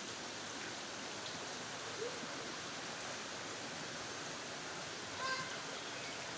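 Steady rush of flowing spring water in a natural rock pool, an even hiss with no breaks. A brief distant call rises above it about five seconds in.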